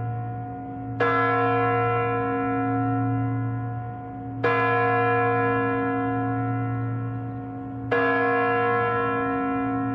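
The Kremlin chimes on the Spasskaya Tower striking the hour on a large bell: three strikes about three and a half seconds apart, each ringing on and fading under a continuous low hum.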